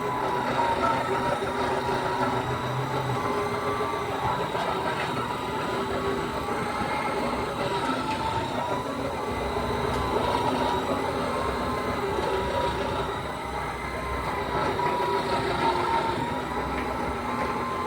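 Floor-care machine running steadily on a marble floor: a constant motor drone with a whine that wavers slightly in pitch.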